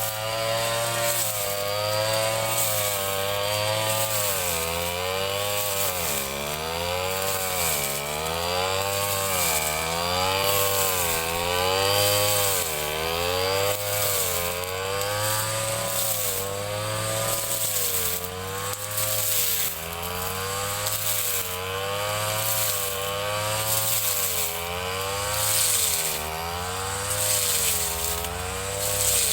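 Ryu 30.5 cc two-stroke brush cutter engine running at high revs while cutting grass. Its pitch dips and rises again about every two seconds as the blade is swept through the grass and takes the load.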